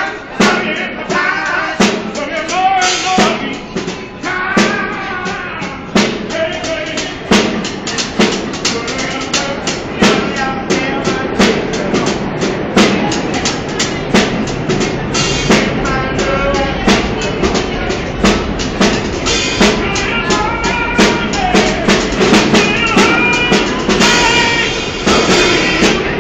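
A blues performance on a drum kit, with snare and cymbal keeping a steady beat, and a voice singing over it in phrases that come and go.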